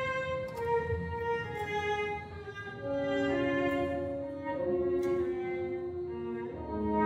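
Student symphony orchestra playing classical music, violins and cellos carrying a bowed melody of held notes that gets louder about three seconds in.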